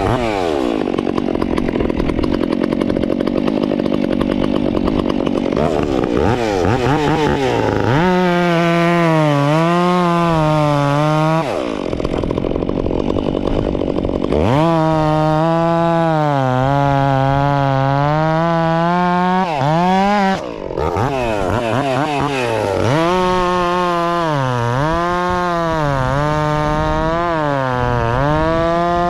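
Stihl 362 two-stroke chainsaw fitted with an Egan Straight Shot performance muffler, run at high revs and cutting wood. Its pitch dips and wobbles under load and drops when the throttle is let off, about 11 s in and briefly about 20 s in.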